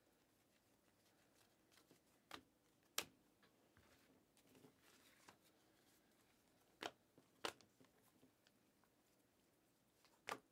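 Panini Mosaic basketball cards being flipped through by hand: faint sliding of card on card with a handful of short, sharp clicks as cards come off the stack.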